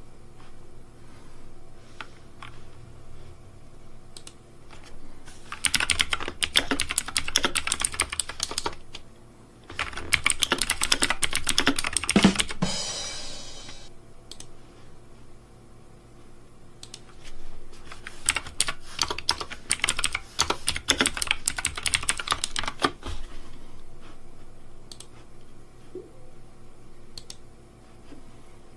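Computer keyboard being typed on in three long bursts of rapid key clicks, with pauses between them. A short pitched tone sounds during the middle burst.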